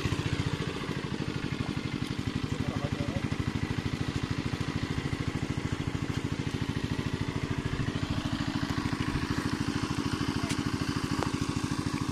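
Small engine of a pump draining the pond, running steadily with an even, fast thudding beat.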